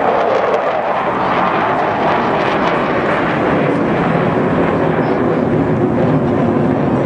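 Steady, loud jet engine noise from a formation of four military jets flying overhead at an air show.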